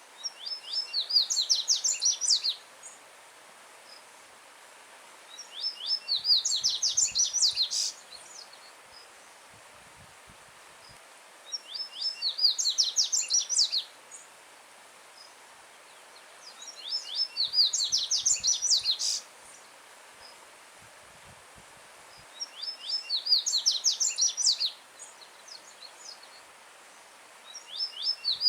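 Yellow-bellied seedeater (coleiro-baiano) singing loudly: five song phrases of about two and a half seconds each, one every five to six seconds, with a last one starting at the very end. Each phrase is a fast run of high, clipped notes. Under the song runs the steady hiss of a stream flowing over stones.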